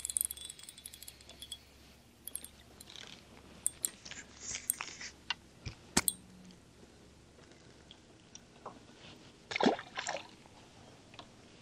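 Quiet, scattered clicks and light knocks of a fishing rod and reel being handled in a small boat, with a louder short clatter about ten seconds in.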